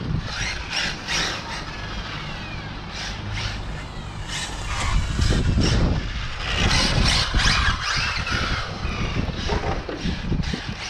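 Riding noise from a vehicle ripping down a street: low rumble and rushing noise that grows louder about halfway through, with short high squeaks now and then.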